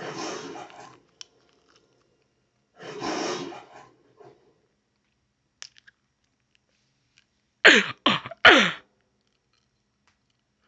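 The MGM lion roaring twice through a television's speakers: the first roar dies away about a second in, and a second roar comes about three seconds in. Near the end, three quick sharp sounds, each falling in pitch, are the loudest thing.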